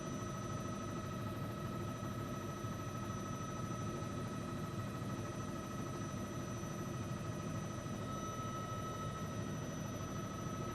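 News helicopter in flight: steady engine and rotor cabin noise with a constant low rumble and a couple of steady high whining tones.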